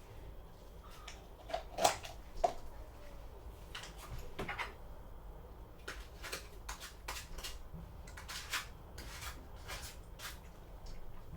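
Cutlery and dishes clinking and tapping in a series of small sharp knocks, with two louder ones about two seconds in.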